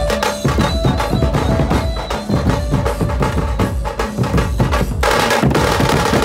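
Dhumal band drums, large and small double-headed drums beaten with sticks in a fast, loud, dense rhythm. About five seconds in, the separate strokes merge into a continuous roll.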